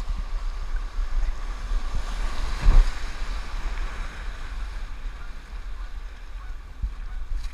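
Rushing whitewater of a river rapid heard from a kayak running through it, with wind buffeting the microphone. A louder thump comes about two and a half seconds in.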